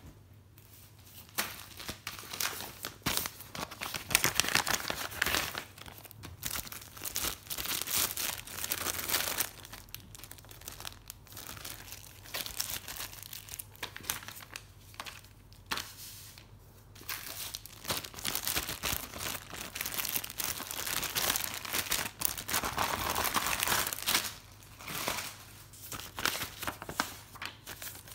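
Packaging being unwrapped by hand, crinkling and tearing in irregular stop-start bursts.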